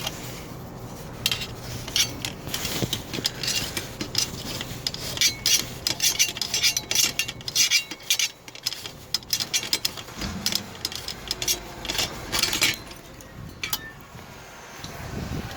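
Spanner wrench scraping and clicking against the threaded retaining ring of a mechanical pushbutton door lock as the ring is spun off, with irregular metal-on-metal scrapes and clinks that thin out near the end.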